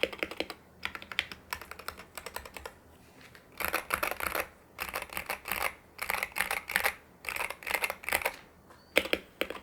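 Typing on a stock Wooting 60HE keyboard with Gateron x Lekker linear switches, PBT keycaps and a steel plate. The keystrokes come as bursts of quick clacks separated by short pauses.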